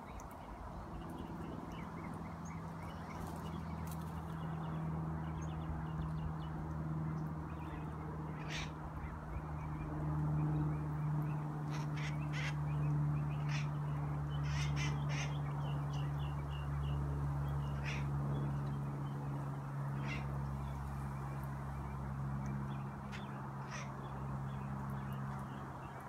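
A red-headed, long-tailed green parakeet giving short, sharp calls, scattered and sometimes in quick clusters through the middle and later part, over a steady low hum.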